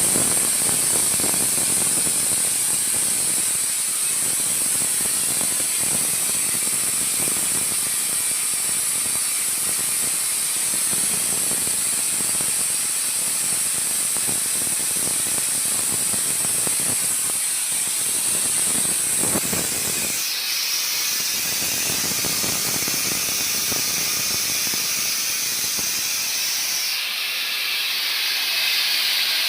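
Steam hissing steadily from a leak in a steam boiler pipe, with a rough, rattling undertone. About two-thirds of the way in the hiss drops lower in pitch and the rattle fades, and it shifts again near the end.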